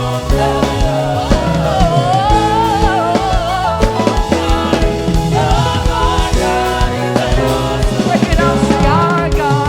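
Live gospel praise music: singing voices over a band with drums.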